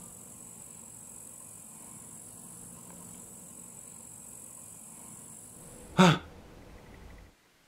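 Faint steady hiss, then about six seconds in a single short, loud pitched cry or yelp, followed by an abrupt cut to near silence.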